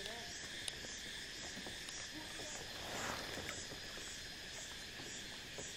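Steady chorus of insects from the mangroves, a high buzzing with a faint regular pulsing. A kayak paddle splashes briefly about three seconds in.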